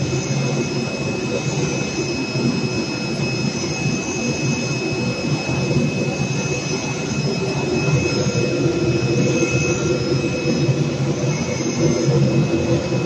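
CNC fabric cutting machine running: a steady mechanical rush with a thin high whine held throughout.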